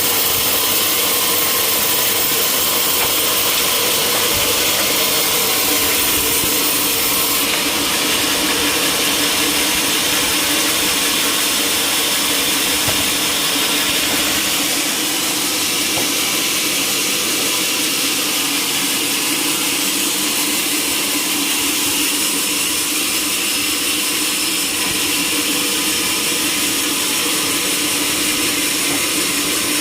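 Sawmill machinery running continuously: a steady mechanical noise with a constant hum under it, shifting slightly in tone a few times.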